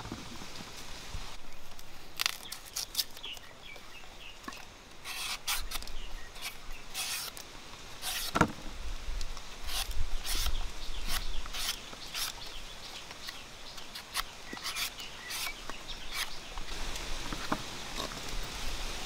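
Green mango being peeled with a knife: a run of short scraping strokes of the blade across the skin, with one louder knock about eight seconds in.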